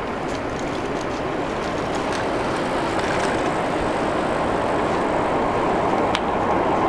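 Four-engine turboprop of a Lockheed Martin CC-130J Hercules on approach: a steady rumble of engines and propellers that slowly grows louder as the aircraft nears.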